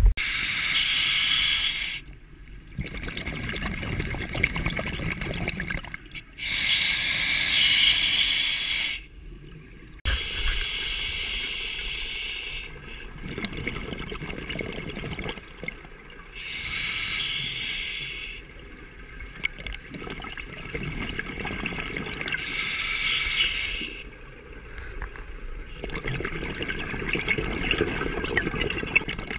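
Scuba diver breathing underwater through a regulator: a hissing inhalation a second or two long every six seconds or so, with bubbling exhalations in between.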